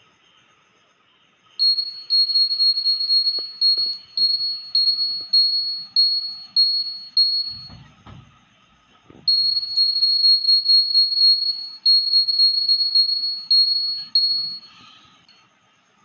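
Piezo buzzer on a homemade earthquake-alarm model beeping at a high pitch in short, stuttering bursts, about two a second. Each burst comes as the shaken base swings a hanging safety pin against a copper wire and closes the 9-volt circuit. It starts a moment in, breaks off for about two seconds midway while a few dull knocks are heard, then buzzes again until near the end.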